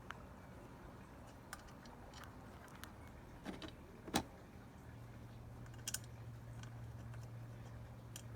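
Faint, scattered light clicks and knocks of metal parts being handled and fitted on a mini moto, the sharpest about four seconds in. A low steady hum comes in about five seconds in.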